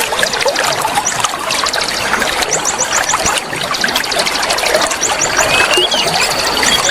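Flowing water trickling steadily, with oriental magpie-robins (kacer) singing over it in quick runs of high chips and short whistled glides.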